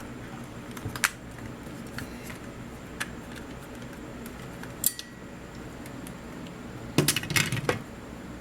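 Small hard clicks and taps from the parts of an Xbox 360 controller being handled as it is unscrewed and its back casing is taken off: single clicks about every two seconds, then a quick cluster of clicks near the end.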